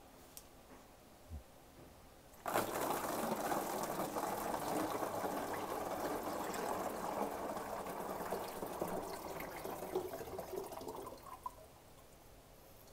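Sugar water being poured from a mixing bowl into a 4-litre plastic water bottle: a steady splashing pour that starts suddenly about two and a half seconds in and tails off about two seconds before the end.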